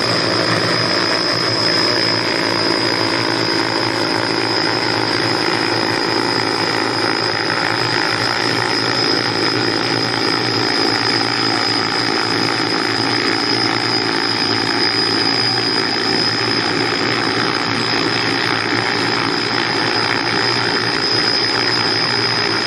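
Avilus heavy-lift multirotor drone in flight, its coaxial rotor pairs on four arms making a steady rotor hum with a constant high-pitched motor whine.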